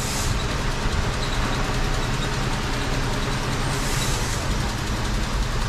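A 2003 Mitsubishi Eclipse's four-cylinder engine idling steadily with a misfire (code P0300); it seems to be running on only two of its four cylinders.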